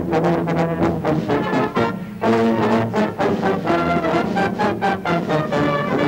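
Brass band playing a tune, with a euphonium among the instruments. There is a brief break in the music about two seconds in before it carries on.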